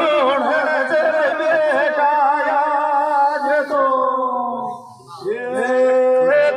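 A man singing a folk song into a microphone, drawing out long wavering notes. His voice breaks off briefly about five seconds in, then comes back on a held note.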